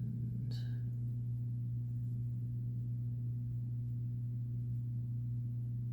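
A steady low hum, with a single faint click about half a second in.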